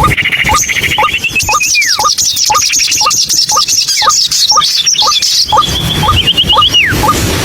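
White-breasted waterhen (ruak-ruak) calling: a steady series of short rising notes, about two a second, with high chirping trills over them.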